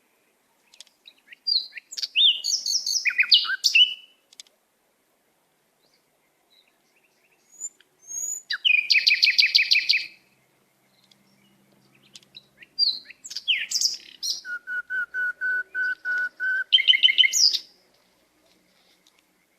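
Songbirds singing in separate bursts with quiet gaps between: a quick warbled phrase, then a fast rapid trill, then a string of about seven even whistled notes ending in another short trill.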